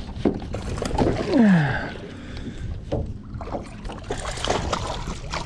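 Knocks and clatter of handling inside an aluminium fishing boat, with scattered sharp bumps and clicks. A short falling pitched sound comes about a second and a half in.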